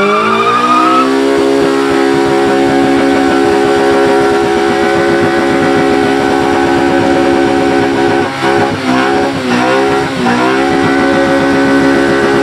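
Honda Civic hatchback's engine held at high revs in a burnout, the front tyres spinning in their own smoke. The revs climb in the first second, where a tyre squeal fades out. They then hold steady, dip and pick up again a few times about eight to ten seconds in, and settle back high.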